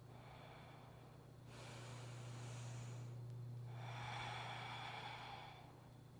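Faint human breathing, two slow breaths timed to a slow exercise movement, the second longer and louder than the first.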